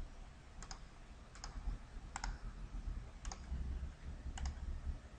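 Computer mouse clicking: five short, sharp clicks, roughly a second apart, over a faint low hum.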